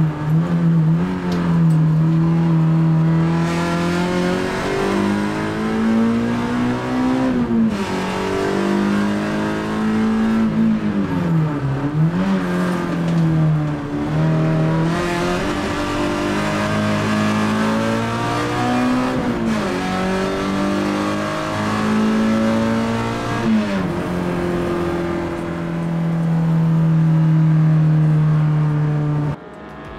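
Peugeot 106 rally car's four-cylinder engine heard from inside the cabin on a fast lap, revving hard with the pitch climbing and then falling sharply every few seconds as it goes through the gears. Near the end it holds a long, steady high-revving stretch, then cuts off suddenly.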